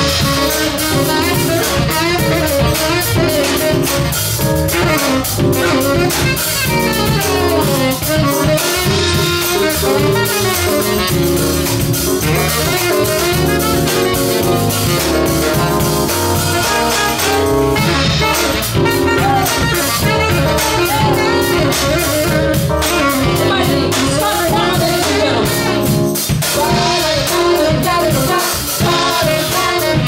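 Jazz band playing, with a steady beat.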